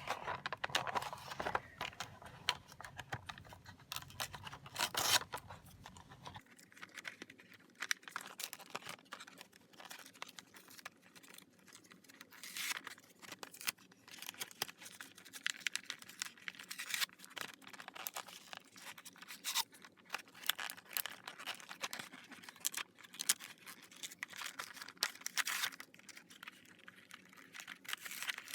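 Retail packaging of a small craft tool kit being torn open and handled: irregular crinkling, tearing and rustling with scattered sharp clicks.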